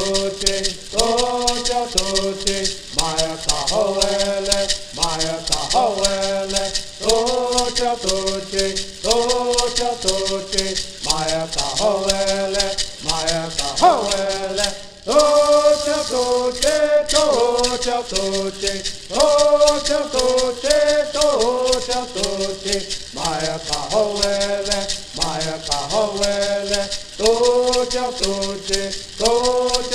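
Traditional bird song: a group of men singing in unison in short repeated phrases, each keeping time with a gourd rattle shaken steadily. Singing and rattles stop briefly about halfway through, then resume.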